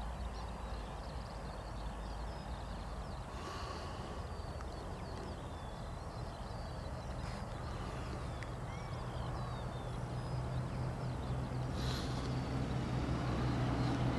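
Small birds chirping over a low engine drone that grows louder through the second half.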